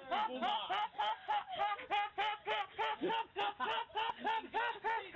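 Fast, bouncy music: a rapid run of short notes that rise and fall, about five or six a second.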